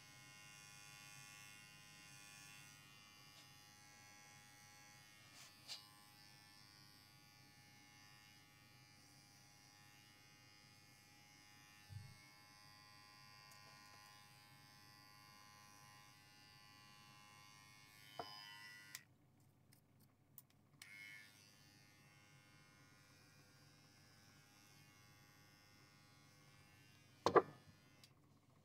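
Electric hair clippers running steadily while trimming a Persian cat's long fur. The buzz's high hiss drops away abruptly about two-thirds of the way through, and a few short knocks sound, the loudest near the end.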